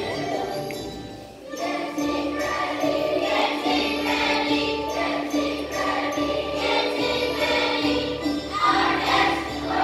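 Children's choir of fourth-graders singing a song with instrumental accompaniment. The music dips briefly about a second in, then carries on.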